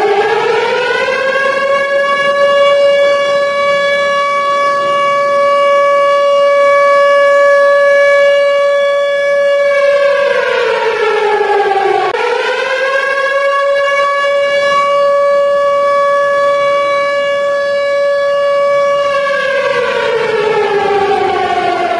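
Civil defence siren wailing. It rises to a steady held tone, falls away about ten seconds in, rises again, holds, and starts falling near the end. This is the rise-and-fall alert signal of an air-raid or evacuation drill.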